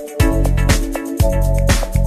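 Instrumental background music with a bass line and drums, the beat falling about twice a second.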